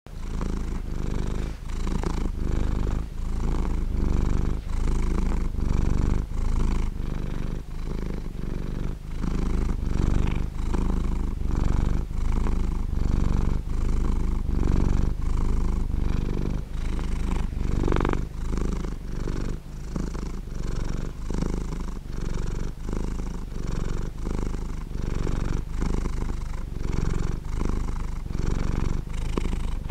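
Domestic cat purring: a steady low rumble that pulses evenly, about twice a second, with the cat's in- and out-breaths.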